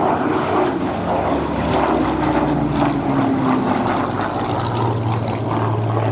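Hawker Hurricane's Rolls-Royce Merlin V12 piston engine as it flies past. The engine note drops in pitch as the plane goes by, then settles into a steady low drone.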